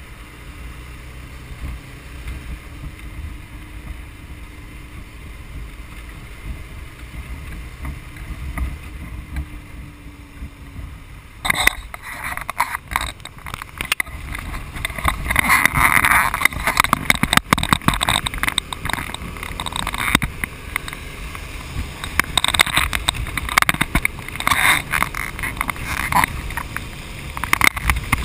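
Motorcycle riding heard from the bike itself: a steady low engine and road rumble with wind on the microphone. About eleven seconds in it turns louder and gustier, with ragged wind buffeting at highway speed.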